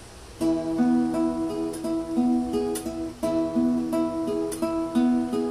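Solo acoustic guitar played with the fingers: after a quiet half-second, picked notes ring one after another over a held bass note, the figure starting over about every three seconds.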